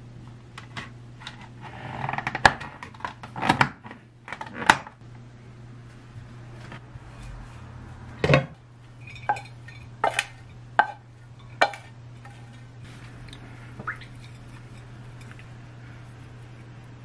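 Kitchen handling sounds: a string of knocks and clinks as a plastic food container, a ceramic dish and a spoon are handled and set down. They come in two clusters, a few seconds in and again around eight to twelve seconds, over a steady low hum.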